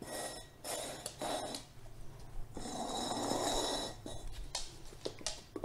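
Dog sniffing hard at upturned cups while searching for a hidden treat: a few short sniffing bursts, then a longer snuffle about two and a half seconds in.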